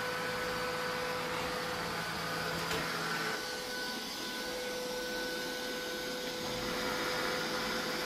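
Neato Botvac D7 Connected robot vacuum running on a hard wood floor: a steady whirr with a thin, even whine over it. Its low hum drops away about three seconds in.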